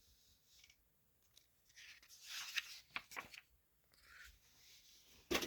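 Paper pages of an old catalog being handled and turned: a faint rustle with a few crisp ticks, then one short, sharp paper snap near the end.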